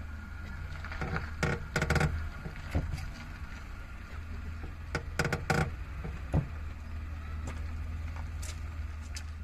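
Suzuki Alto Works (HA36S) 660 cc three-cylinder turbo engine idling with a steady low hum, while sharp clicks and knocks come at irregular intervals, several in quick clusters. This is the clutch noise and catch that comes when the clutch pedal is pressed slowly once the car is warm, a fault that appeared after about 40,000 km.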